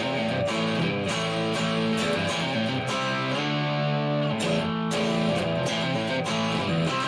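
1958 Gibson Les Paul Special electric guitar with both P-90 pickups on (middle switch position), played through a Marshall Plexi amp model with a little grit. Strummed chords and picked notes change every half second to a second.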